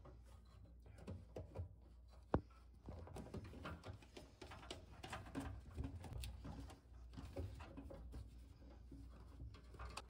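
Faint handling noises of a plastic drain P-trap and its fittings: light scrapes, rubs and taps, with one sharp click about two and a half seconds in.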